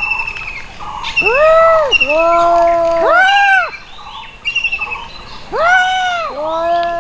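Cats yowling at each other in a standoff: long, moaning yowls that rise and fall in pitch, one after another, with a lull in the middle. This is the threat call cats make before a fight.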